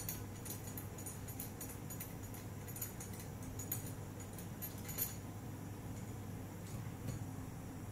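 Faint, scattered small clicks of screws being unscrewed by hand from a metal flange plate, over a steady low hum.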